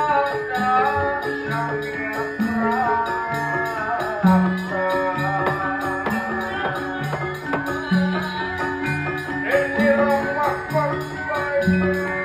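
Sundanese gamelan music: steady low notes alternating at an even pace under a melody that slides in pitch, with small percussion over it.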